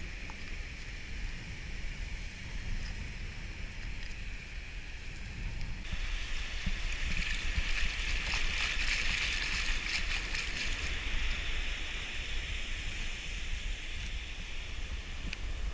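Surf at the water's edge with wind rumbling on the microphone. About six seconds in, the hiss of a wave's wash running up over the sand gets louder for several seconds, then eases.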